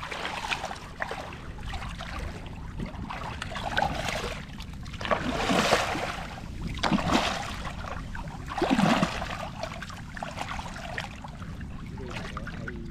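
Hands splashing and churning shallow seawater while digging by hand into the wet sand and mud of a mantis shrimp burrow, with several louder splashes in the middle.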